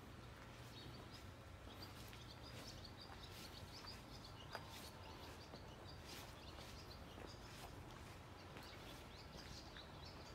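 Quiet outdoor ambience with small birds chirping faintly, many short high chirps in quick succession.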